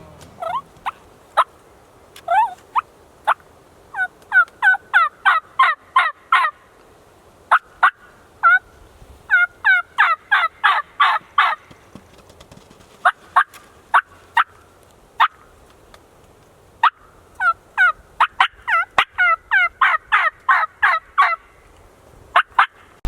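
Turkey yelping: series of quick, sharp notes, each sliding down in pitch, in runs of about ten with short pauses between, the longest runs near the middle and toward the end.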